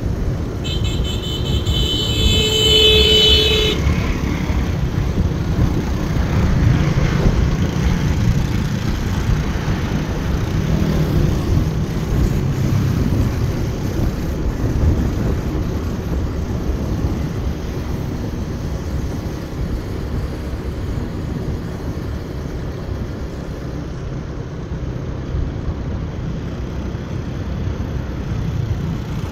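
Motorbike riding along a road: steady engine and wind-and-road rumble, with a vehicle horn sounding for about three seconds near the start.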